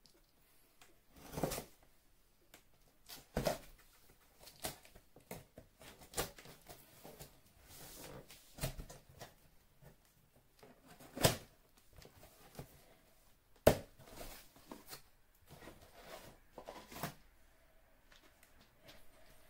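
Cardboard printer box being opened by hand: a knife slitting the packing tape, the flaps lifted and the contents inside rustled and handled, heard as many scattered knocks, scrapes and rustles. Two sharper knocks stand out a little past the middle.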